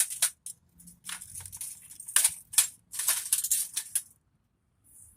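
Crunching, scraping and rattling of plastic and metal computer scrap being handled and worked apart, in irregular bursts. A couple of sharp snaps come a little after two seconds in, and it stops about four seconds in.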